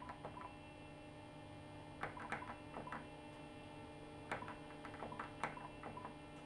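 Plastic keypad buttons on an NEC SV8100 desk phone clicking as they are pressed, in three short runs of quick presses, over a steady electrical hum. The repeated presses step one key through its letters while a speed-dial name is typed in.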